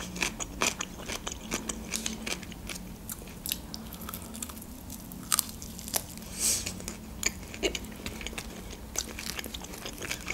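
Close-miked chewing and biting of grilled shashlik meat, with frequent short wet mouth clicks and smacks.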